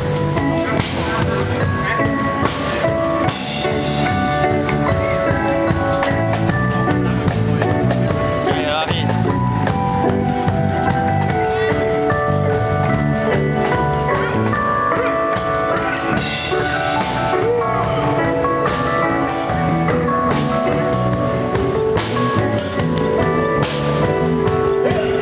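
Music with a drum kit keeping a steady beat under held melodic notes from other instruments.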